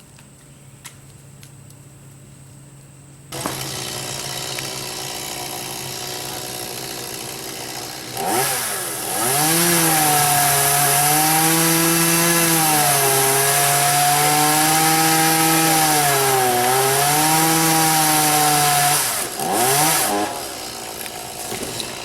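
Two-stroke chainsaw running, revved up to full throttle about eight seconds in and held for around ten seconds, its pitch sagging twice as if bogging under load in a cut through a log. It then drops back to a lower idle near the end, with a brief blip of throttle.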